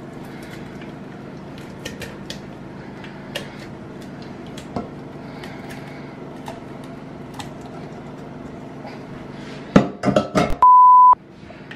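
A metal spoon scrapes and taps as soft cooked tomatoes are scraped out of a non-stick frying pan into a glass blender jar. Near the end the pan knocks and clatters down into a steel sink, followed by a loud steady beep lasting about half a second.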